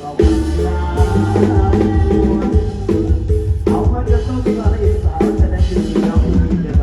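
Mor lam band music: drum kit and bass keeping a steady, heavy beat under a repeating melodic line.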